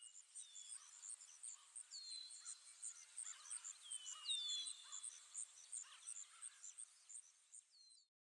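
Faint birdsong: several clear whistled notes, each sliding downward, over a row of rapid, evenly spaced high chirps, starting and stopping abruptly.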